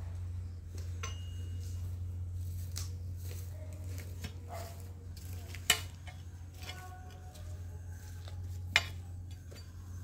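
Scattered light clinks and knocks, two of them sharp and loud about three seconds apart, over a steady low hum.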